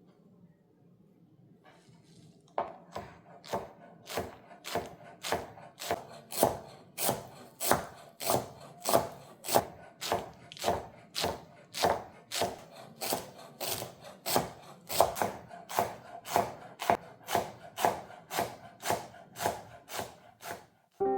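A kitchen knife chopping on a wooden cutting board in steady, even strokes, about two a second, starting about two and a half seconds in.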